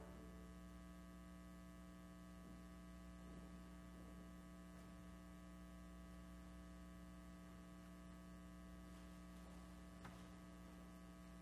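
Near silence apart from a steady electrical mains hum in the recording, with one faint tick about ten seconds in.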